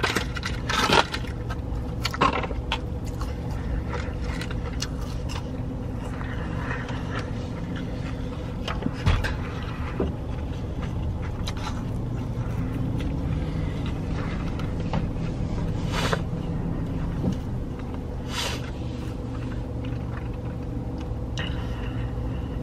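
Chewing and the rustle of paper food packaging over the steady low hum of an idling car in the cabin. A few rustles and clicks come in the first couple of seconds, with a thump about nine seconds in and two short hissy sounds later on.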